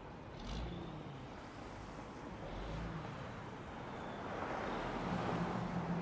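Road traffic going by: steady tyre and engine noise, with one vehicle passing louder near the end.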